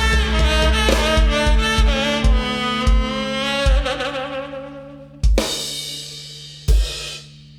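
A live rock band ending a song. A held chord rings out and slowly fades over a run of drum hits, then two sharp final full-band hits land about a second and a half apart near the end.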